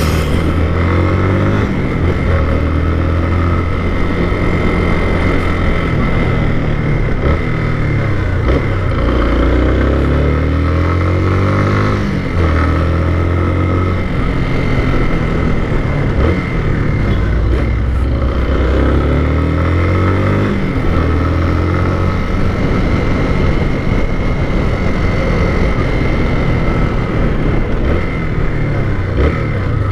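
Motorcycle engine pulling through the gears while riding: its pitch climbs and then drops back at each gear change, several times over.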